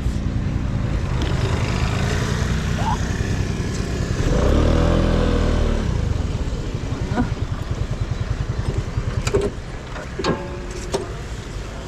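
Vespa scooter's engine running as it is ridden along a road, swelling louder about four to six seconds in and dropping back near the end as the scooter slows.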